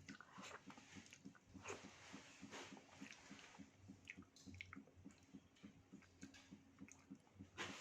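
Faint close-up chewing of soft food, with scattered wet mouth clicks and lip smacks.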